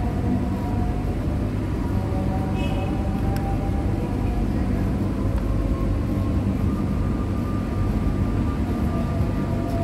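Steady low rumble of engine or traffic noise, with faint humming tones drifting over it.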